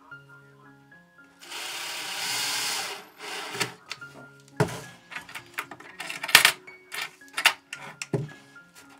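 A cordless drill-driver runs for about a second and a half, driving a screw for a steel wire connecting clamp on a wooden Warré hive box. It is followed by several sharp clicks and knocks of the metal clamp against the wood as it is pressed into place.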